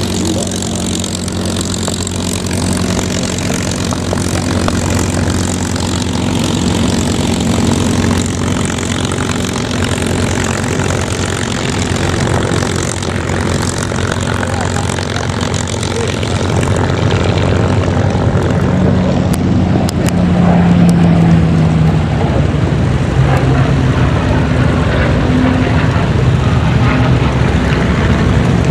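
Piston-engined warbirds taxiing at low power: a P-51 Mustang's Merlin V-12 running with a steady throb, then a Harvard's radial engine growing louder in the second half as it comes closer.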